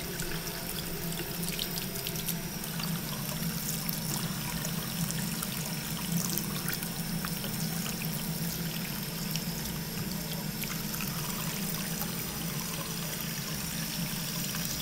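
Bathroom sink faucet running a thin, steady stream into the basin, with scattered small splashes and drips as a cat paws at the stream and drinks from it.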